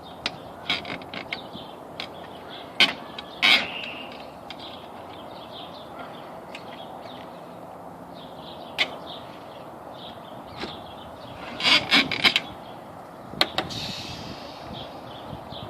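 Scattered clicks and knocks of lockout tools working on a car door with manual locks, as the tool probes and catches the lock mechanism. The clicks come singly and in short clusters over a steady hiss, with a quick run of them about twelve seconds in.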